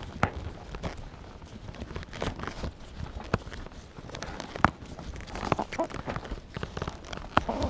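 Hands working a knot loose in a braided rope, with irregular taps, rubs and rustles of rope and sailcloth. The loudest knock comes a little past halfway.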